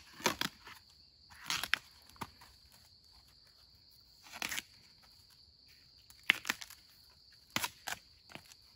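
Tough outer husks being ripped by hand off fresh bamboo shoots: short sharp crackling tears every second or two, over a steady high insect drone.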